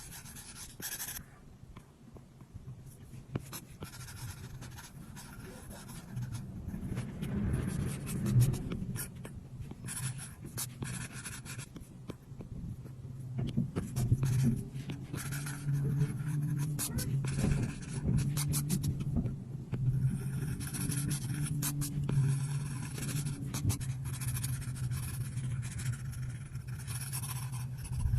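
Apple Pencil tip tapping and stroking across an iPad's glass screen while drawing, with many small sharp clicks among scratchy strokes.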